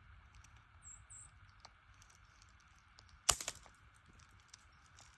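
Quiet outdoor ambience with two brief high-pitched bird chirps about a second in, then one sharp click a little past three seconds in and a few faint ticks.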